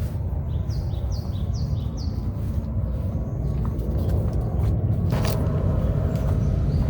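A bird calls four times in quick succession, short high chirps, over a steady low rumble. There is a single brief knock about five seconds in.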